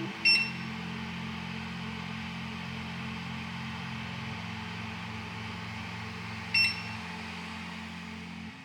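Two short electronic beeps about six seconds apart from a SilverCrest bladeless fan heater's controls, over the steady rush of its fan and soft background music.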